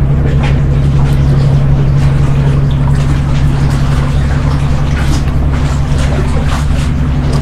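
A loud, steady low engine drone, holding one pitch with no rise or fall, with a few faint light clicks over it.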